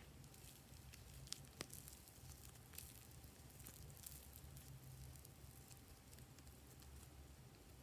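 Faint soft squishing and light crackling of soft modelling clay being kneaded and squeezed between fingers, with a few faint clicks in the first two seconds.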